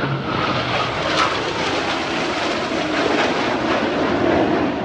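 Jet noise from the Blue Angels' six-ship delta formation of F/A-18 Hornets passing overhead: a loud, steady rush of engine noise that holds throughout the pass.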